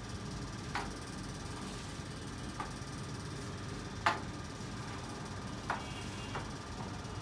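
Sharp clicks of a carrom striker on the wooden carrom board and its pieces, five in all, the loudest about four seconds in, over a steady low room hum.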